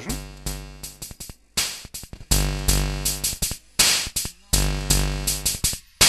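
Circuit-bent Hing-Hon EK-001 toy keyboard playing its built-in demo song, a harsh electronic tune over a drum-machine beat. The music cuts out and snaps back in abruptly several times as its bent mute switch is toggled.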